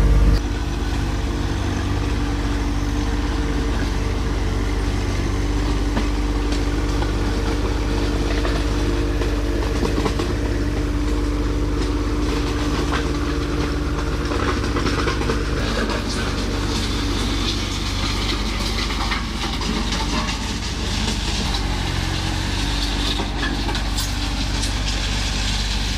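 John Deere 1025R compact tractor's three-cylinder diesel running steadily while a rear scrape blade drags through loose gravel, with crunching and clicking of rock under the blade.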